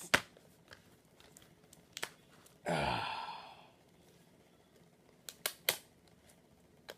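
Packaging being worked open by hand: a sharp click at the start, then scattered small clicks and taps, with a sigh-like falling vocal sound about three seconds in.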